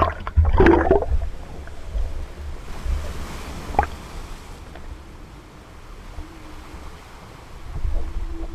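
Sea water sloshing and splashing around an action camera, with a low rumble on the microphone and a louder splashy spell in the first second.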